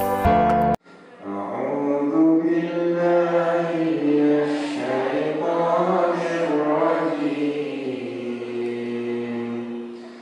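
Instrumental music cuts off about a second in. A man's voice then chants a slow, melodic religious recitation through a microphone, in long held notes, and fades near the end.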